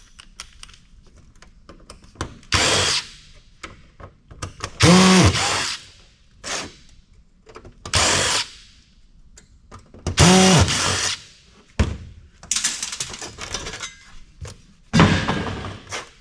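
Cordless power drill-driver run in about six short bursts, backing screws out of a computer case. On some bursts the motor's pitch rises and then falls, with small clicks and handling knocks in between.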